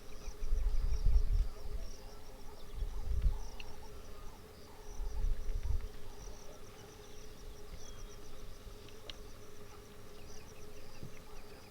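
Insects chirping in a rapid, pulsing chorus over a steady low hum, with three low rumbles in the first half, the loudest about a second in.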